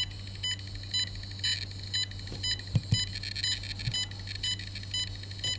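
Cornet ED88 electrosmog meter's audio indicator beeping: short pitched pips, about two to four a second. It is sounding off at the RF from a phone transmitting data in 4G LTE mode, which the meter reads as very high levels.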